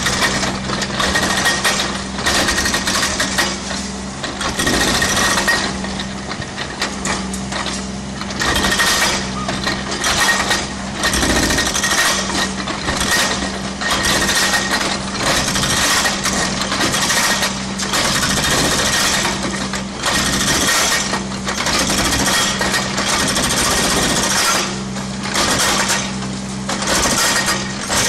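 Mini excavator's hydraulic breaker hammering concrete in runs of a few seconds with short pauses between them. The excavator's engine hums steadily underneath.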